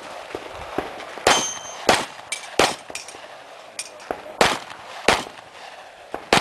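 About six gunshots fired at uneven intervals during a 3-gun stage, the first followed by a brief metallic ring of a struck steel target.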